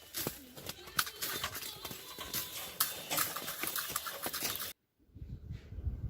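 Dense, irregular patter of small clicks and knocks with rustling, which cuts off suddenly about four and a half seconds in; after that comes a low rumbling noise, like wind on the microphone.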